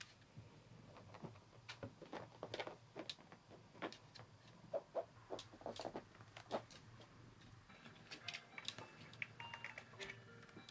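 Scattered light taps and clicks of cats moving about and playing with toys in a quiet room. Soft background music comes in near the end.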